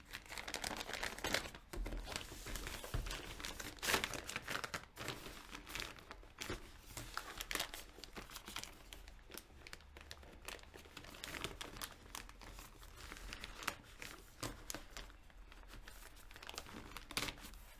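Clear plastic bag crinkling and rustling as hands slide a spiral-bound sketchbook out of it, with irregular crackles throughout.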